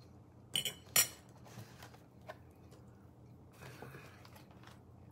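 A metal fork set down on a ceramic plate: two sharp clinks about a second in, then a lighter tick. A little later comes a soft rustle as the food package is picked up.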